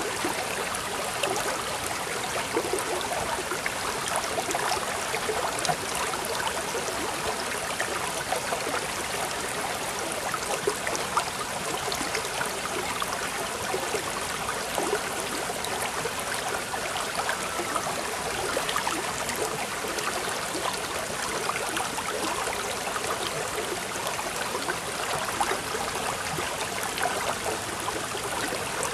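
Steady running water, like a small stream, babbling evenly with many small splashing ticks.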